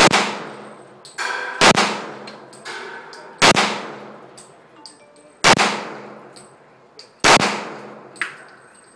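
Taurus PT640 .40 S&W semi-automatic pistol fired five times in slow, deliberate single shots, about one every two seconds. Each shot is a sharp crack followed by a trailing echo, with a fainter ringing clink between the first two shots.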